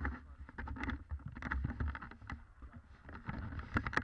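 Low rumble of wind on the camera microphone, with irregular scuffs and knocks as the camera is moved and footsteps crunch on the gravel roadside.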